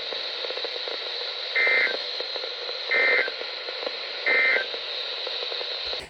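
Three short buzzing SAME end-of-message data bursts from a NOAA Weather Radio broadcast, about a second and a half apart, over steady radio hiss. They are the digital 'end of message' code that closes the weekly alert-system test.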